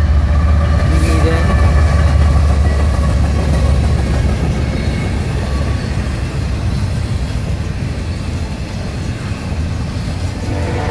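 Freight train passing close by: a diesel locomotive's deep, steady rumble, strongest over the first few seconds, then double-stack container cars rolling past on the rails.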